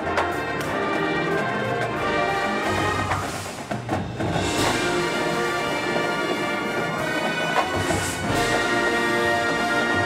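High school marching band playing: held brass chords over percussion and timpani, dipping briefly about three and a half seconds in and then coming back louder.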